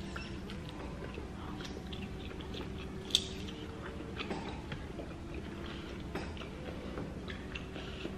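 Close-miked eating sounds: chewing and wet mouth and finger-licking smacks from people eating a seafood boil, with one sharp smack about three seconds in, over a low steady hum.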